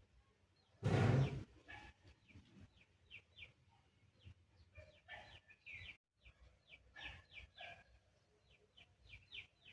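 Small birds chirping repeatedly, quick high chirps that fall in pitch, with one loud, harsh burst about a second in.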